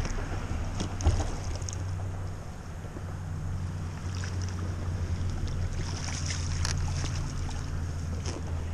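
Water sloshing and splashing against a kayak and around a landing net, over a steady low wind rumble on the microphone, with one sharp knock about a second in.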